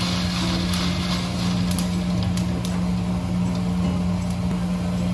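A steady low hum under a constant hiss, with a few faint clicks; it starts suddenly right at the beginning.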